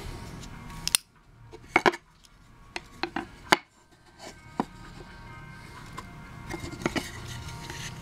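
Wooden pieces of a hand-drill fire kit, the willow hearth board among them, being picked up and handled on a wooden table: a series of sharp wooden knocks and clicks, the loudest about three and a half seconds in. A steady background noise cuts off suddenly about a second in.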